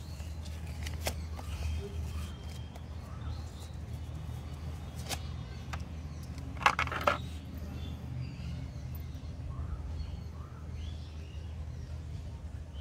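Paper cards and leaflets being handled and laid on a wooden table, with light clicks and one short loud burst of crinkling about halfway through. A steady low background hum runs underneath, with faint bird chirps.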